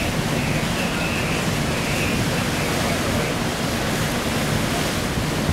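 Steady rushing noise of rough sea churning against the ship's side, mixed with wind on the microphone, over a low, even machinery hum.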